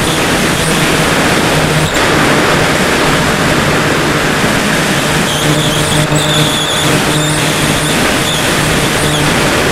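Bixler 2 RC plane's electric motor and pusher propeller droning under a heavy rush of wind over the onboard camera. The motor hum holds a steady pitch with small shifts as the throttle changes, notably from about five seconds in.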